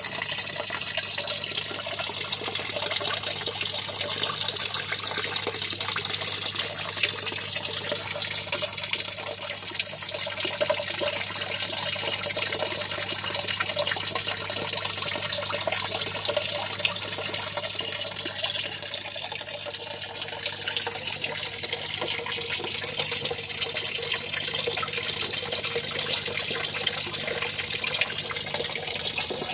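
Water steadily splashing and churning in a fish tank, stirred by a small submersible pump, with a low steady hum underneath.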